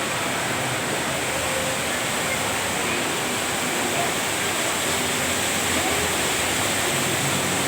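Steady rushing of the Rain Vortex, a large indoor waterfall, water pouring down into its basin.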